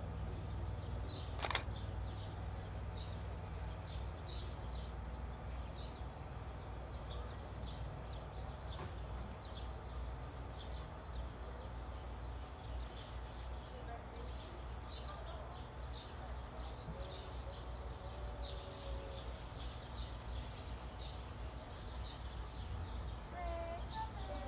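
Insects chirping in a steady, even pulse over a low, steady rumble, with one sharp click about a second and a half in.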